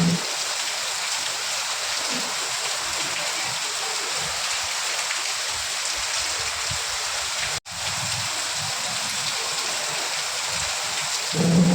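Steady rain hiss. The sound cuts out for an instant about two-thirds of the way through, and a short, louder low hum comes in just before the end.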